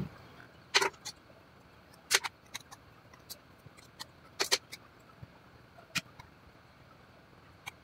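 About a dozen small, sharp clicks and taps at uneven intervals, some in quick pairs: a small screwdriver and a tiny screw knocking against an open laptop's chassis while the screw is taken out at the M.2 slot and an M.2 SSD is fitted.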